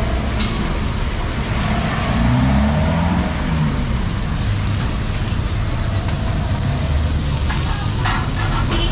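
Steady street traffic rumble, with a passing vehicle's engine rising and falling about two to three seconds in. Under it is a faint hiss from a raw T-bone steak starting to sizzle on a hot ridged griddle, and a few light clicks come near the end.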